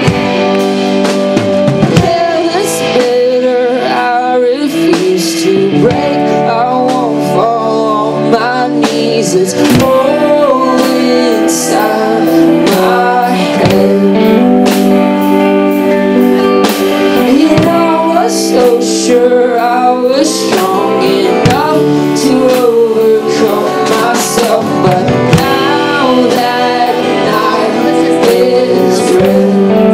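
A live band plays a song with guitars and drums while a man sings. The singing comes and goes over the steady band, with regular drum hits throughout.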